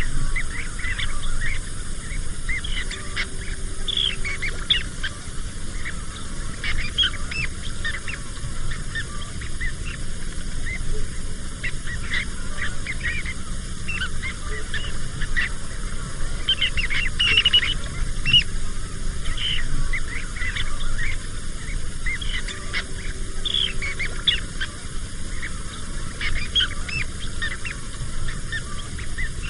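A flock of birds calling continually, many short overlapping calls, over a steady low rumble.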